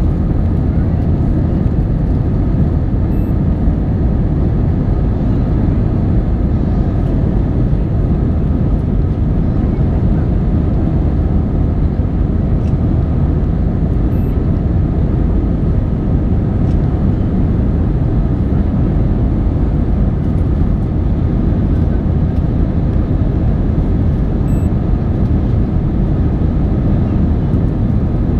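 Passenger plane's engines and airflow at a steady, loud roar during takeoff, with a few faint steady whining tones above it.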